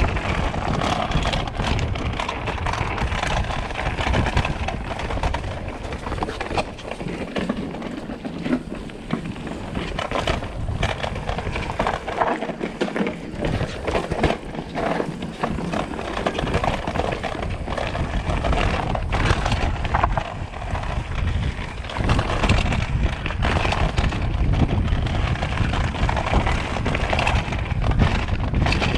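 Mountain bike riding downhill on dirt singletrack: wind rushing over the handlebar-mounted camera's microphone and tyres rolling over dirt and rocks, with frequent short rattles and knocks from the bike over bumps. The low rushing eases briefly a few times mid-way, then comes back strong.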